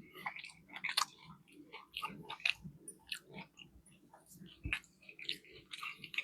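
Close-up chewing of a fried fish fillet sandwich: wet, crackly mouth sounds with irregular clicks and smacks.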